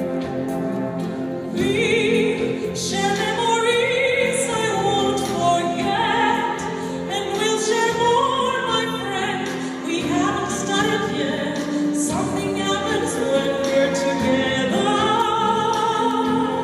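A woman singing in an operatic style with wide vibrato, backed by a live orchestra.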